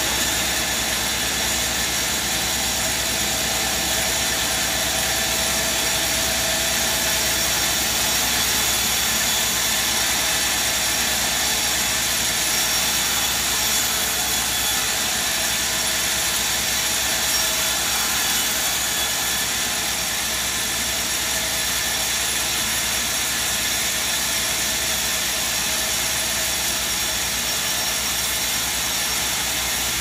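A sawmill band saw running, a loud, steady machine noise without breaks.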